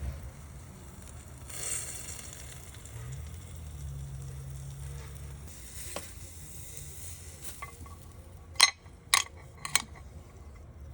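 Food sizzling as it cooks on a grill, over a steady low hum, with three sharp clinks about half a second apart near the end.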